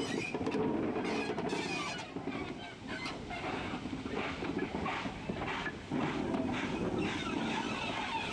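Two industrial steam tank locomotives working a train of wagons past at slow speed: exhaust beats from their chimneys over the steady noise of the moving train.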